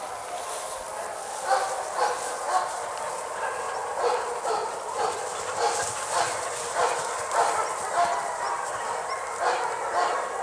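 A dog barking over and over, about two barks a second, starting about a second and a half in.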